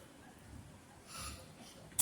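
A faint, short mouth sound about a second in, from someone eating a ripe mango.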